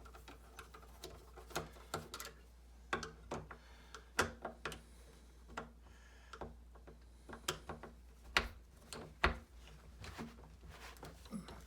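Irregular light clicks and taps of a screwdriver backing out the two screws that hold a Schlage FE599 keypad lock's interior cover, with a few sharper knocks.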